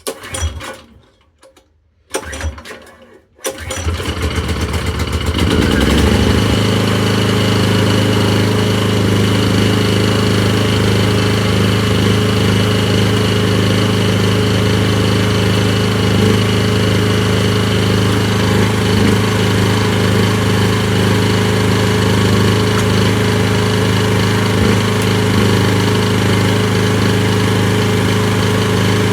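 Briggs & Stratton generator's petrol engine pull-started on its recoil: two pulls, catching on the second, then picking up speed and settling into a steady run about six seconds in.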